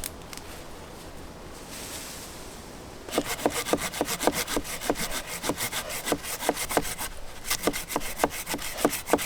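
Hand saw cutting through dead wood, with quick, regular back-and-forth strokes about three a second that start about three seconds in and pause briefly near the seven-second mark. Before the sawing there is only a soft steady wind.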